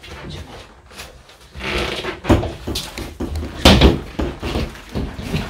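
Rustling and scattered knocks of household objects being handled and set down, with one louder knock about two-thirds of the way through.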